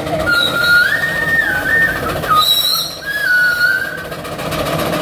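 Steam whistle of a 22 hp Keck-Gonnerman twin-cylinder steam traction engine blowing in two long blasts, its pitch stepping up and sliding back down, with a brief shrill burst between them.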